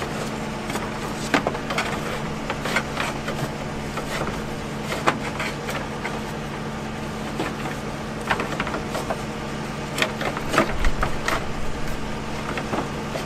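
Scattered plastic clicks and knocks as a car's radiator cooling fan assembly and its shroud are worked down into their mounting brackets, over a steady low hum.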